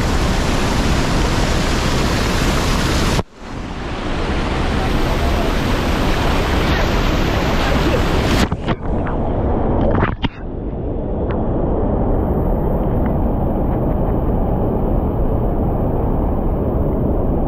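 Loud rushing river water, a steady wash of noise. It cuts out abruptly twice, briefly about three seconds in and again with a few stutters around nine to ten seconds, before returning.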